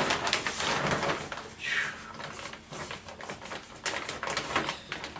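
Crackly rustling and irregular clicks of dry potting soil and a pot being handled while potting a plant.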